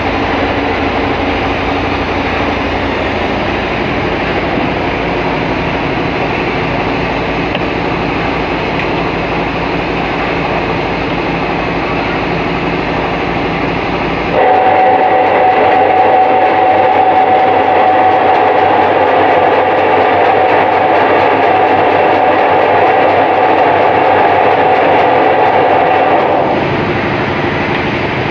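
Meatball-forming machine running: its motor drives the gear-turned auger that pushes meatball dough out of the hopper nozzle, making a loud, steady mechanical whir. About halfway through it gets louder and higher-pitched.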